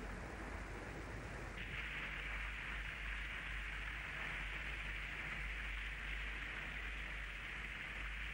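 Steady hiss over a low hum, the hiss growing brighter about a second and a half in.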